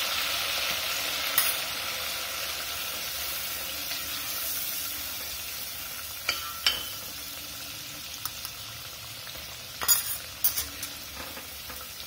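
Red chilli powder and spices sizzling in hot oil in a stainless steel pot while a wooden spoon stirs them, the chilli roasting in the oil. The sizzle slowly dies down, broken by a few sharp taps of the spoon against the pot.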